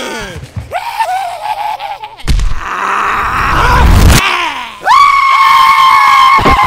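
Cartoon fight sound effects and character voices: a wavering cry, then a loud crash lasting about two seconds, then a long, steady high-pitched scream that cuts off sharply near the end.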